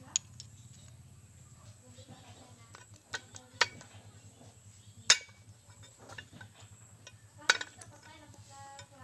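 Metal motorcycle transmission parts of a Haojue engine clinking as they are handled and taken apart: a handful of sharp metallic clinks, the loudest about five and seven and a half seconds in.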